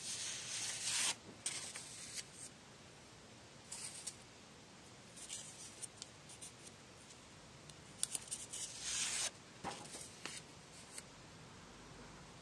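Sheets of paper being handled and slid across one another, in a series of short rustling bursts, the longest right at the start and around eight to nine seconds in.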